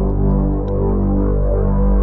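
Slow ambient background music: sustained notes held over a steady low drone.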